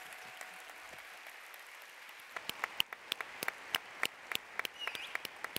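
Audience applauding. From about two seconds in, sharp single claps close to the microphones stand out over the crowd, about three a second.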